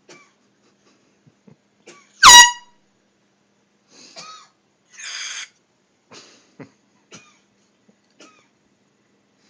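An air horn gives one short, very loud blast about two seconds in. Several fainter short sounds follow.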